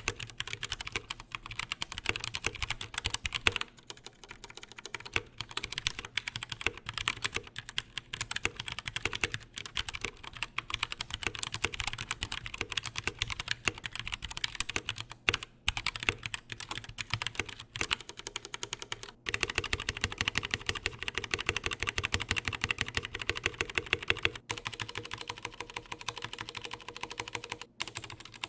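Typing on a Blitzwolf BW-KB1 60% mechanical keyboard with Gateron Brown tactile switches: a dense, continuous run of key clicks and keycap clacks with a few brief pauses, quickening into a fast, even run about two-thirds of the way through.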